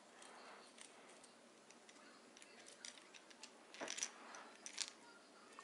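Near silence with a few faint clicks and taps from a plastic wobbler lure and its treble hooks being turned in the hands, the clearest of them around four seconds in.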